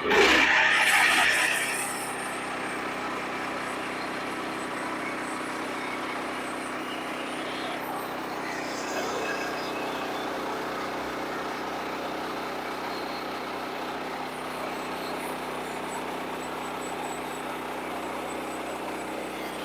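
Sawmill engine running steadily at an even pitch, after a loud, harsh stretch in the first two seconds.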